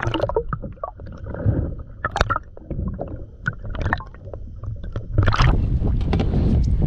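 Water sloshing against a kayak, with scattered short knocks and clicks, and wind rumbling on the microphone; the rushing noise grows louder about five seconds in.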